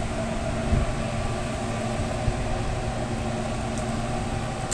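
Steady hum and whir of food-truck kitchen machinery running, with a held low tone, and a low knock just under a second in.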